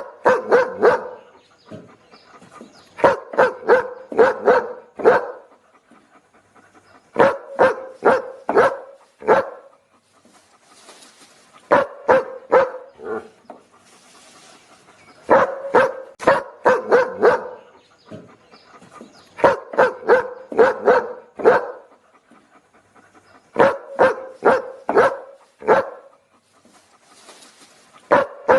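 A dog barking in quick bursts of four to six barks, a burst about every four seconds, the same pattern repeating as a loop.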